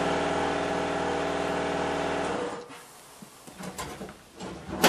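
Air impact wrench hammering on the shock absorber mount nut for about two and a half seconds, then stopping. A sharp metallic knock follows near the end.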